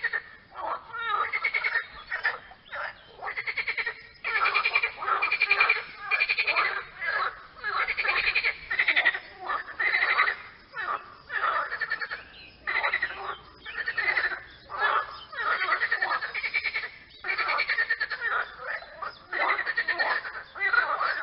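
Several frogs calling over one another in a chorus: rasping, rapidly pulsed croaks that overlap and repeat about once a second, without pause.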